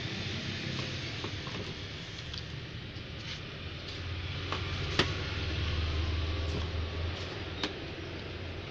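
Small plastic clicks and taps from handling a mobile phone with its back cover off and pressing its battery into place, with one sharp click about five seconds in and another near the end, over a steady low hum.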